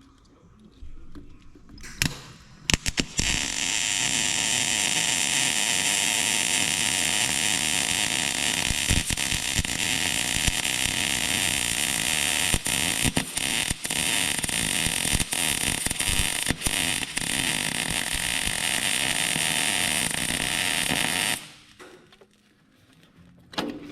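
Welder working on a broken-off wheel stud: after a few sharp clicks as the arc strikes, a steady crackling, buzzing hiss runs for about eighteen seconds and cuts off suddenly.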